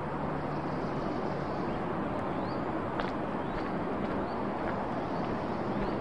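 Forest trail ambience: a steady rushing noise under a small bird's short rising chirps, repeated about every half second, with a couple of light clicks.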